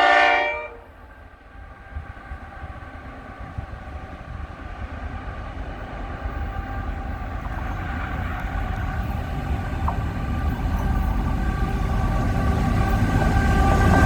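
A train horn sounds one short blast, then an approaching train's rumble grows steadily louder.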